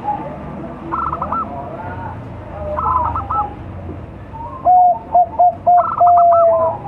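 Young Bangkok-strain zebra dove (perkutut) singing its cooing song. Near the end comes the loudest phrase: a coo, three short clipped notes, then a long drawn-out final note. Softer, higher warbling calls come about a second, three seconds and six seconds in.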